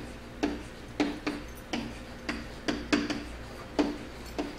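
Pen or stylus tapping and knocking against an interactive whiteboard while words are handwritten: a series of sharp taps, about two a second, each with a brief low ring.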